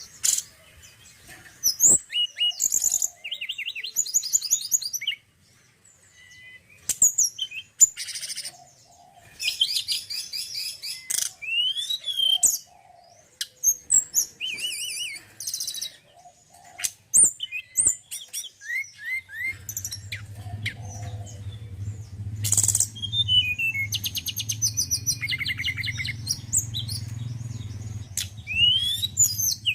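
Male tledekan gunung singing: varied bursts of chirps, whistled slurs and fast trills with short pauses between phrases. About two-thirds of the way in, a steady low hum starts under the song.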